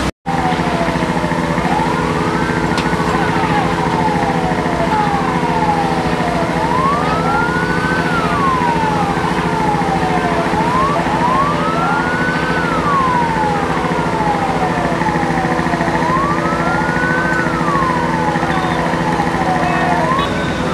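Fire truck sirens wailing in slow rising and falling sweeps, each cycle taking about four to five seconds, with the sweeps overlapping. A steady hum runs underneath.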